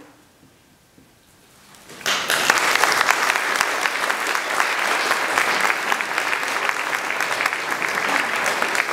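After a short hush, an audience breaks into applause about two seconds in, the clapping then carrying on steadily.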